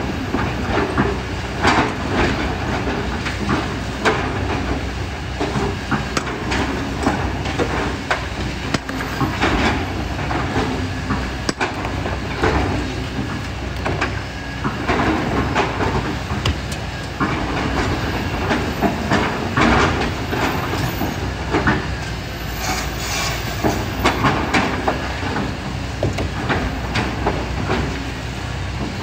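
Kobelco hydraulic excavator's diesel engine running steadily under load while it digs, with a continual irregular clatter and knocking of rocks and gravel against the steel bucket.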